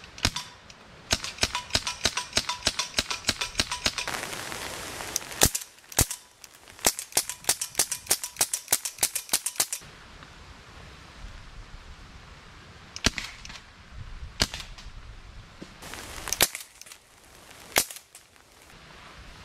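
Crosman 1077 CO2 pellet rifle firing, about five sharp shots a second in two quick strings. Several single shots follow, spaced a second or more apart.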